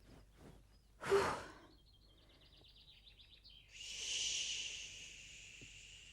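A short noisy burst, then garden birdsong: a fast fluttering trill and a longer, hoarse high call that fades near the end.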